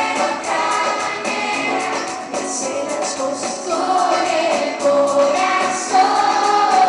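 Pop song: a woman sings lead with a choir behind her, over a band with a steady beat.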